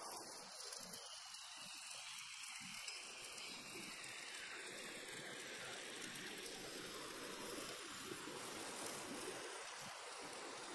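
Squid and shrimp sizzling in a bubbling chili sauce: a steady hiss.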